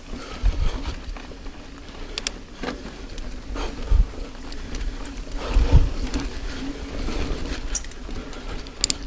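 Niner EMD 9 hardtail mountain bike rolling fast over a dirt singletrack: steady tyre noise with sharp rattles and clicks from the bike, and heavy low thumps over bumps about half a second in, around four seconds and around six seconds.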